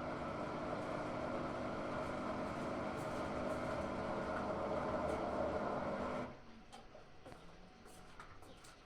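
Hotpoint-Ariston AQ8L 09 U washing machine running with a steady mechanical hum, which cuts off suddenly about six seconds in, leaving a quiet room with a few faint clicks.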